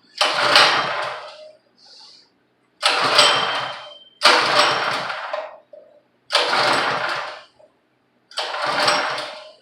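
Recoil pull-starter of a 163 cc small engine on a pressure washer being yanked five times in a row, the engine cranking with each pull but not catching and running.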